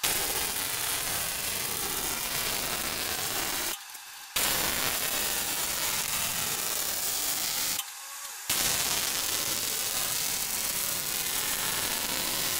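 MIG welding arc on steel seams, running steadily in three passes with short pauses about four and eight seconds in; the inside seams of steel fuel-tank parts are being welded closed.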